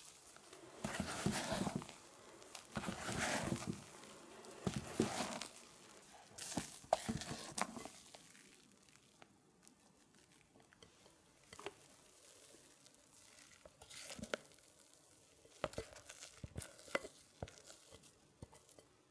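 A silicone spatula folding a thick batter in a glass bowl, in about four swishing, scraping strokes. After that, quieter scraping as the batter goes into a plastic piping bag, with scattered light taps and crinkles of the bag.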